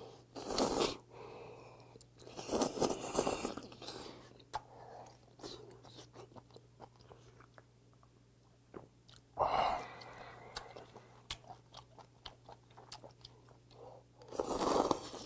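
Close-up slurping of knife-cut kalguksu noodles from a hot broth, in several loud slurps: one just after the start, a longer one around three seconds in, one at about nine and a half seconds and one near the end. Wet chewing fills the gaps between them.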